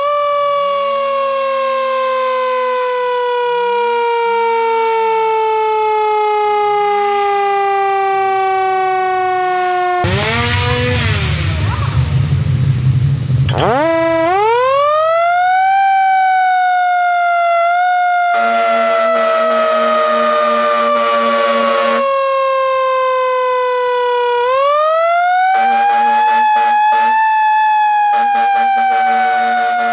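A wailing siren falls slowly in pitch, winds back up steeply twice and sinks slowly again each time. A loud rushing noise breaks in about ten seconds in. A steady air horn blows twice in the second half, the first time for about four seconds.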